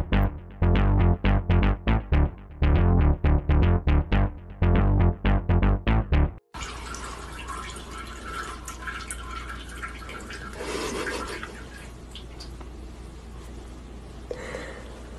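Loud music with a regular beat of sharp, pitched notes for about six seconds, then it cuts off suddenly to a much quieter steady low hum with faint, indistinct background sounds.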